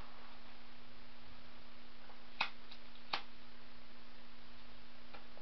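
Two sharp clicks about three-quarters of a second apart, a cigarette lighter being flicked, over a faint steady hum.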